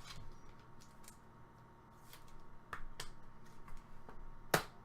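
Trading cards being handled and flipped through by hand: scattered light clicks and rustles, the sharpest click a little after four and a half seconds in.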